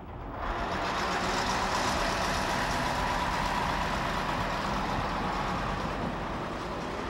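Heavy dump truck driving across a railway level crossing: engine and tyre noise build up in the first half-second, hold steady, then ease a little near the end.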